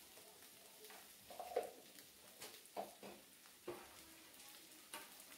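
Faint sizzling of onion-and-spice paste frying in oil in a steel kadai, with a handful of soft clicks scattered through it.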